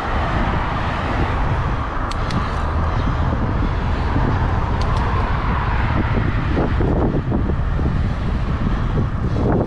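Wind buffeting the microphone of a helmet-mounted camera on a moving bicycle, a steady loud rumble with road and tyre noise, broken by a few faint clicks.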